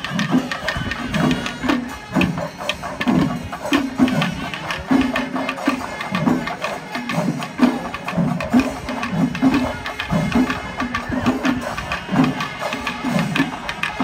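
Traditional Kerala temple percussion: drums beaten in a steady rhythm of about two strokes a second, with a dense clatter of sharper strokes over them.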